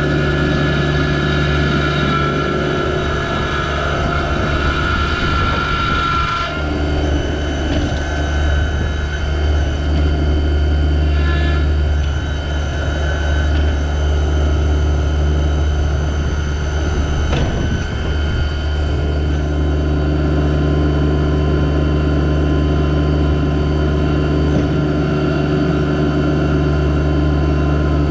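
Yanmar SA324 compact tractor's three-cylinder diesel engine running steadily while working snow, with a high whine over it that drops away about six seconds in; the engine note changes again about eighteen seconds in.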